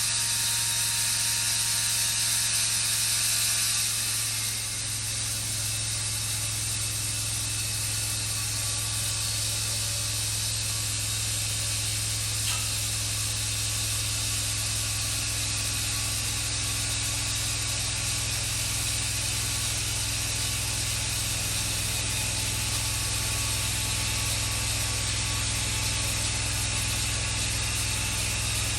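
Large band sawmill running steadily, its engine giving a constant low hum. About four seconds in, a set of higher steady tones stops and the machine settles into an even run.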